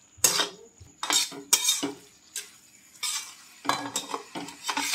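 Metal spatula scraping and stirring a thick masala mixture in a metal kadai, in irregular strokes about one or two a second, as the chicken giblets and egg are fried (bhuna) in the masala.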